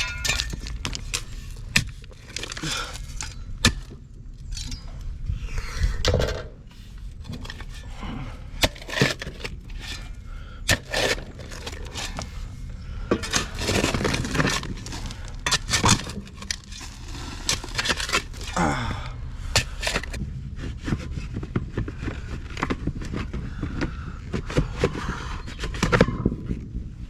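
A shovel scraping and chopping into dirt and stones, with irregular sharp strikes and scrapes over a steady low rumble.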